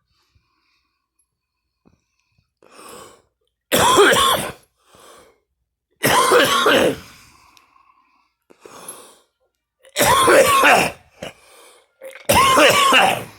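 A person coughing and gagging: four loud, harsh, strained fits of about a second each, with quieter gasping breaths between them.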